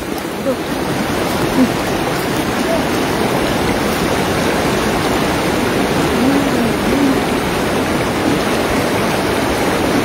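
Steady rush of flowing stream water, churned by a man wading in it and groping through it with his hands.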